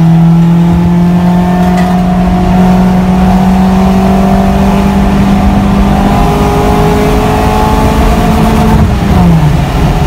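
A 1992 Honda Civic's four-cylinder engine heard from inside the cabin as it accelerates, its pitch slowly rising. About nine seconds in, the pitch falls as the revs drop.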